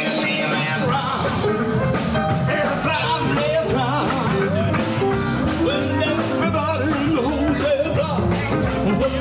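Live dance band playing a song with a singer, over a steady drum beat.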